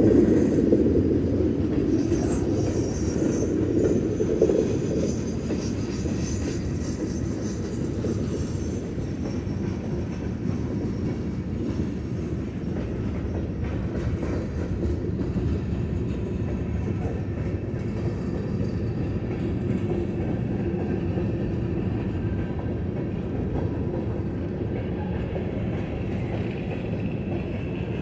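Freight train cars rolling past a grade crossing: a steady rumble and clatter of steel wheels on rail, louder in the first few seconds.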